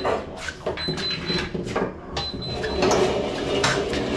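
Mowing deck of an EGO electric zero-turn mower being dragged out from under the mower across a concrete floor, with irregular knocks, clatter and scraping as its small wheels roll and bump.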